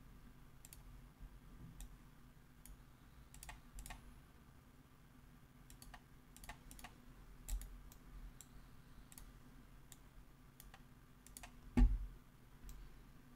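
Faint, irregular clicking from a computer mouse and keyboard, a couple of dozen clicks spread unevenly, with one louder low thump near the end.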